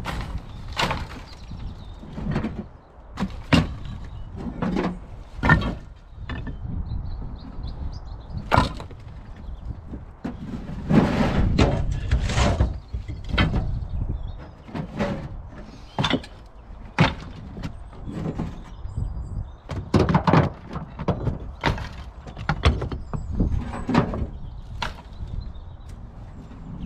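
Bricks, broken concrete and other rubble thrown and set down onto a loaded trailer: a long irregular run of hard knocks and clunks, with longer scraping, rattling stretches in between.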